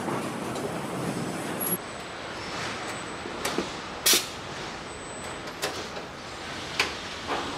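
Car assembly-line factory noise: a steady hum of machinery in a large hall, broken by scattered short clicks and hisses from hand tools, the loudest about four seconds in.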